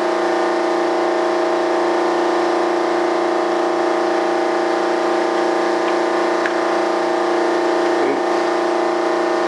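Benchtop combination disc and belt sander running steadily, a constant motor hum that holds one pitch.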